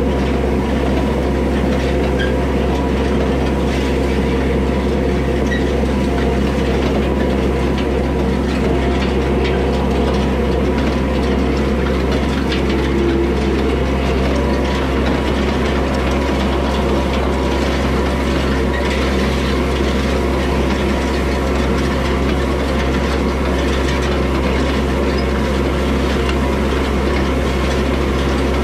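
Yanmar tractor's diesel engine running steadily under light load, with the continuous clatter and rattle of an old ground-driven side-delivery hay rake's reel, tines and gears turning as it is towed through hay.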